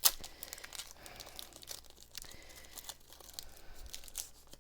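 A foil Pokémon TCG booster pack wrapper being torn open and crinkled. It starts with a sharp snap, then goes on as irregular crackling.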